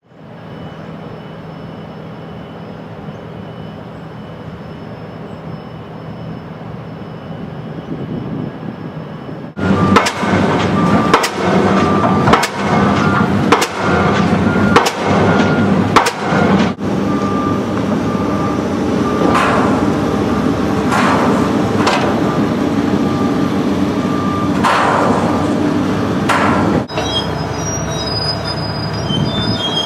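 Pile driver at work: steady machinery rumble, then about a third of the way in a run of sharp, heavy hammer blows roughly once a second for about six seconds, after which the machinery runs on steadily with a few softer swelling sounds.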